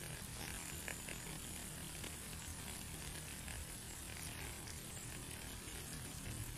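Steady rain: an even hiss with scattered small ticks of drops.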